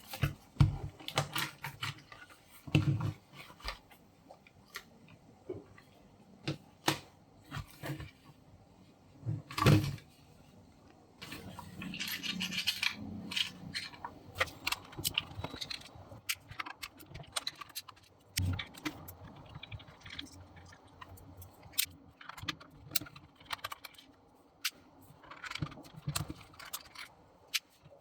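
Clicks, taps and knocks of a DYMO LabelManager 100's plastic casing being handled and opened up, with a denser stretch of rubbing and scraping from about eleven to seventeen seconds in.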